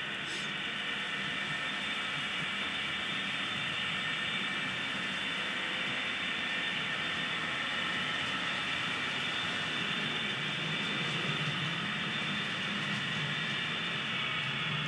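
HO-scale model freight train running on its track: a steady whir of the rolling wheels and drive motor.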